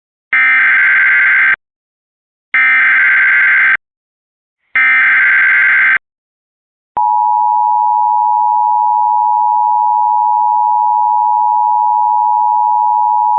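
Emergency Alert System header: three bursts of SAME data tones, each about a second long with about a second between them. About seven seconds in, a steady, loud two-tone attention signal begins, announcing a flash flood warning.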